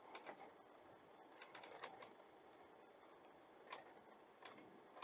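Near silence with faint, sharp clicks at uneven intervals, some in quick pairs or triplets, over a low background hiss.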